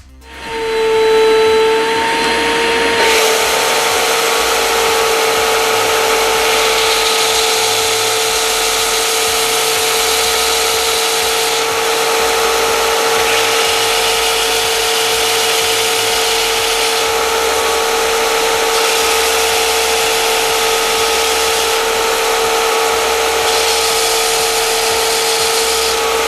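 SIP 6" x 10" belt/disc sander with a 1 hp motor switching on and coming up to speed with a steady whine. About three seconds in, a wooden workpiece is pressed against the abrasive, and a steady rushing sanding noise runs over the motor's whine.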